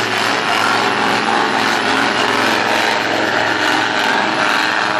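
Farm tractor's diesel engine running loud and steady at full power under heavy load, dragging a weight-transfer pulling sled.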